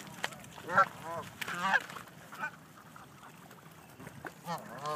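Geese honking: a run of short, rising-and-falling honks, several in the first two and a half seconds and two more near the end.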